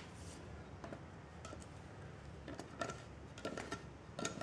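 Scattered light taps and clicks, about half a dozen, of hands handling a tin of polyurethane and a tool at its lid.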